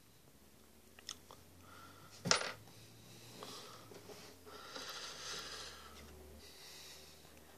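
Quiet handling sounds: one sharp click a little over two seconds in, then a soft hiss for a few seconds.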